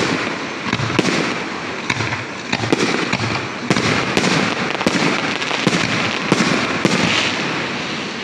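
Aerial fireworks shells bursting in quick succession, a sharp bang about every half second to a second, with crackling and echo in between.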